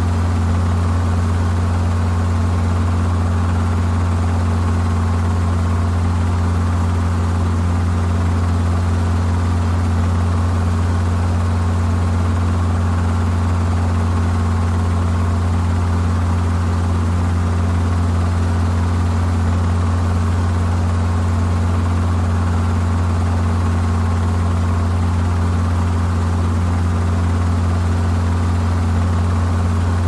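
Helicopter running steadily: a constant low, deep drone with a few fixed tones above it, unchanging in pitch and level.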